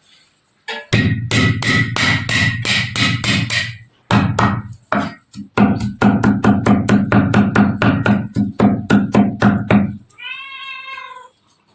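Rapid chopping with a knife on a chopping board, about four to five strokes a second with a short break about four seconds in, as garlic is smashed and chopped for stir-frying. A cat meows once near the end.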